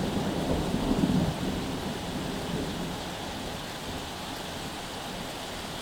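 Rolling thunder dies away over the first second or so, leaving the steady hiss of heavy rain pouring down.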